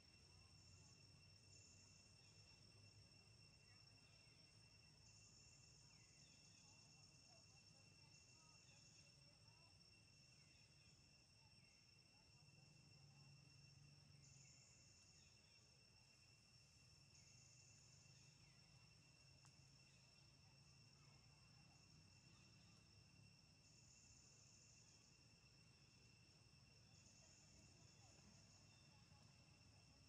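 Near silence with a faint insect chorus: a steady high trill, with short high calls recurring every few seconds.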